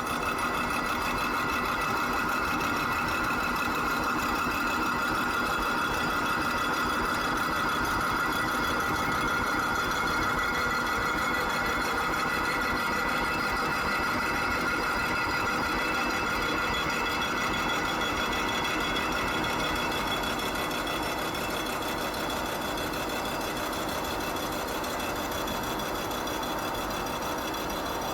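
Hydraulic vertical milling machine running: a steady motor hum with a constant whine, easing slightly in level about twenty seconds in.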